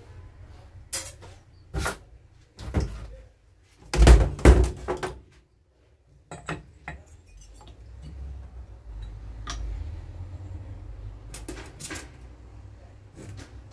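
Knocks and clatters of parts being handled on a chainsaw's engine during repair work, loudest in a quick cluster of knocks about four seconds in.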